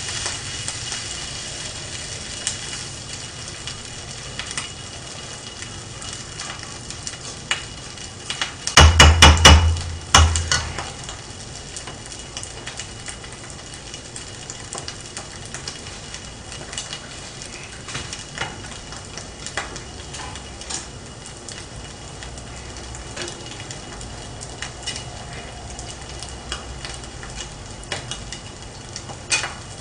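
Kimchi fried rice sizzling in a frying pan over a gas burner, with scattered light clicks and scrapes of a spoon against the pan. About nine seconds in comes a cluster of loud knocks lasting about a second and a half.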